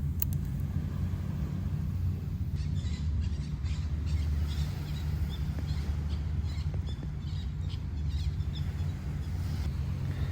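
Outdoor seaside ambience dominated by a steady low rumble of wind on the microphone, with faint scattered high chirps through the middle.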